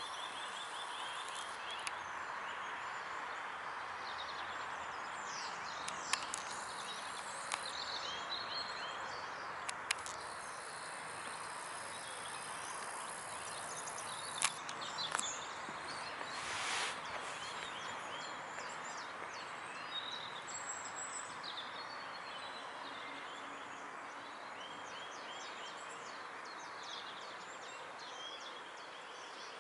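Small songbirds chirping and singing in short high phrases over a steady outdoor background hiss, with a few sharp clicks and a brief rushing noise just past halfway.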